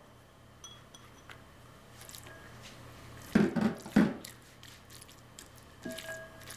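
Silicone spatula stirring chopped red onion into flaked tuna in a ceramic bowl: soft scraping against the bowl and light clicks, with two louder brief sounds a little past the middle.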